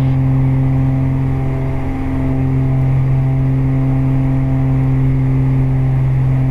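Twin piston engines and propellers of a Beechcraft Baron 58 droning steadily in the climb, a strong low hum with a stack of even overtones that holds at one pitch.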